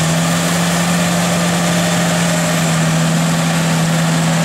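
Electric winch on a 4x4 pickup's front bumper running under load as it hauls the truck forward: a steady motor whine holding one low pitch.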